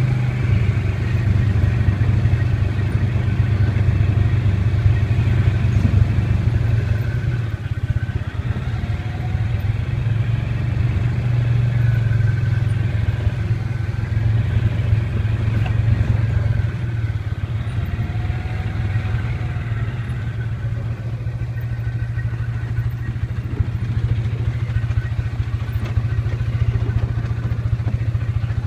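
ATV engine running steadily at an even pitch, a low drone with no revving, mixed with rattling as the machine bounces over rough, rocky dirt trail.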